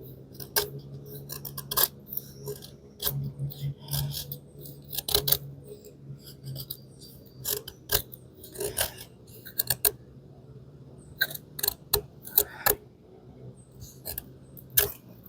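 D2 steel folding knife shaving curls off a hardwood stick to make a feather stick: a run of short, irregular scraping strokes.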